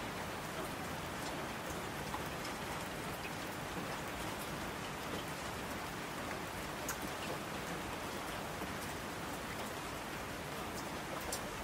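Steady rain: an even hiss with scattered faint ticks of drops.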